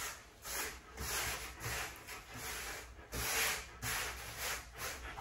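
Irregular scratchy rubbing strokes, about one every half second: a pumice stone worked like a comb over a French Bulldog's short, thick coat, pulling out shedding undercoat.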